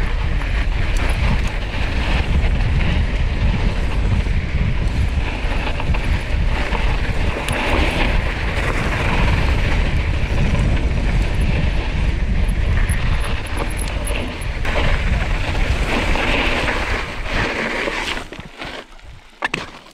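Mountain bike descending a loose dirt trail: wind buffeting the microphone over the noise of tyres rolling on dirt and the bike rattling. The noise dies down near the end as the bike slows.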